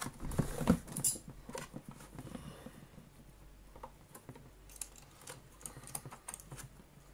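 Light clicks and taps of hands handling the mains cable's crimped wire ends at the vacuum cleaner's plastic terminal block, loudest in the first second or so, then fainter and scattered.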